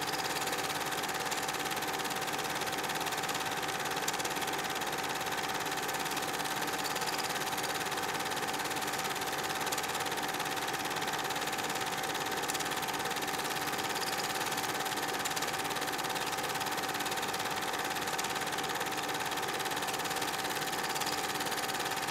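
A home-movie film projector running: a steady mechanical whir with one constant tone through it.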